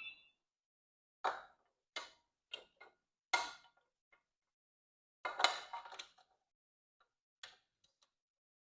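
Small hard parts being handled during e-bike repair work: a series of separate sharp clicks and knocks with quiet gaps between them, several of them close together around five to six seconds in.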